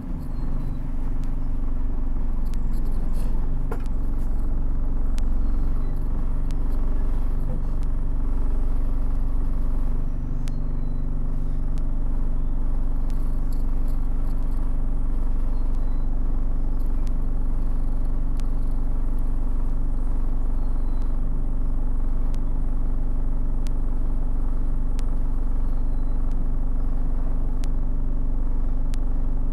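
Bus engine running with a steady low hum and rumble, heard from inside the passenger saloon, with faint ticks and rattles scattered through it. The hum shifts in pitch over the first ten seconds or so, then holds steady.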